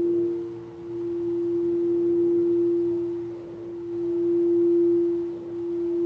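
Singing bowl sounding one sustained, steady tone, kept ringing as it is played, its loudness swelling and fading every second or two.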